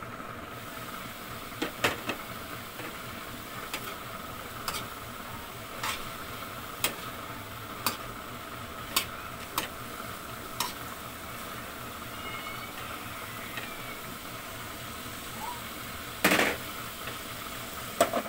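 A spatula knocks and scrapes against a steel pan about once a second as vegetables and chicken are stirred, over a steady sizzle from the pan. Near the end come two louder clanks as the pan's lid is handled and set back on.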